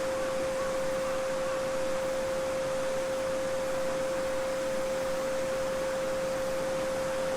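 A steady 528 Hz sine tone held unbroken over the even rushing of a babbling brook.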